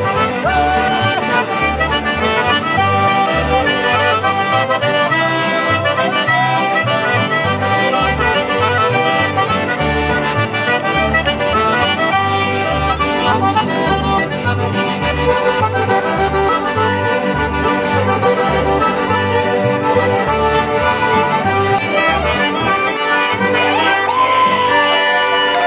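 Live Cajun dance tune played by a jam band: a Cajun button accordion leads over several fiddles, strummed acoustic guitars and a plucked upright bass keeping a steady beat.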